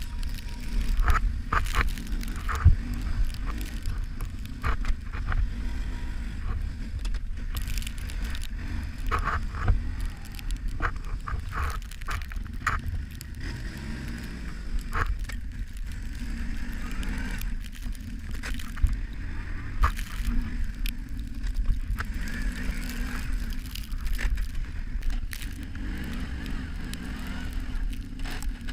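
Kawasaki Brute Force 650 ATV's V-twin engine running steadily while a plow blade pushes snow, with frequent crunches and scrapes of snow against the blade.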